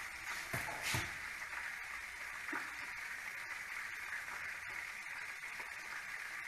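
Chicken frying in hot oil: a steady sizzle, with two light knocks about half a second and a second in.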